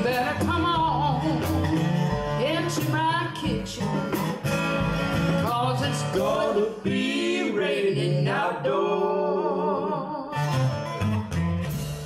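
Live blues trio: a woman singing lead over strummed acoustic guitar, with a second guitar and drums.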